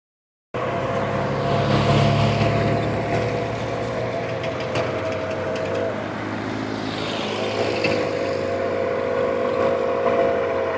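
Nickel Plate Road steam locomotive's chime whistle, sounded from a distance in two long blasts of about five seconds each, with a short break between them, over a low rumble.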